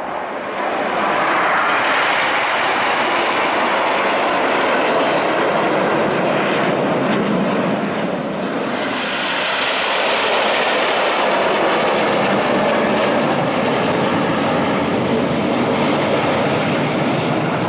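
Jet engines of a nine-ship formation of BAE Hawk jets flying a display: a continuous rushing jet noise that swells again as the formation passes closest, about halfway through.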